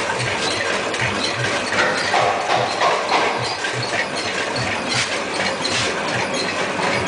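Low heartbeat thumps from a walk-through heart model's sound effect, about two a second, over a steady background noise.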